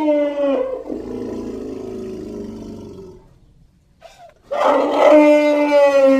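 Shin Godzilla's roar sound effect: a loud, pitched, screeching roar with many overtones that slides slightly down in pitch and breaks off into a lower, rougher rumble. After a short gap, a second long roar begins about four and a half seconds in.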